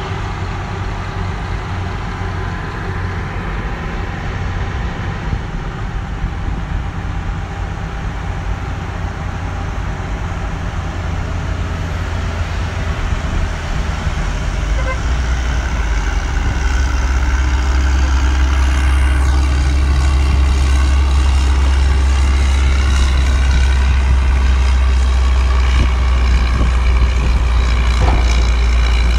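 Heavy diesel construction machinery running steadily: a Caterpillar 323D hydraulic excavator working at first. About halfway through, the louder, deeper steady drone of a Caterpillar 120K motor grader's diesel engine takes over as it grades the dirt roadbed.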